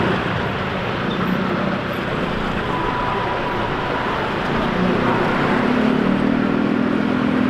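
Steady traffic noise from many motorcycle and scooter engines in slow, congested stop-and-go traffic, with a low engine hum that grows a little stronger in the second half.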